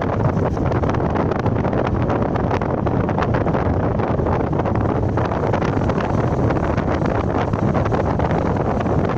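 Wind buffeting the microphone at the side of a moving car, with dense crackling gusts over the car's steady road noise on a snowy road.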